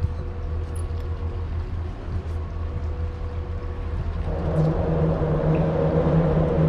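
A steady low motor hum with a rumble beneath it. About four seconds in it grows louder and fuller.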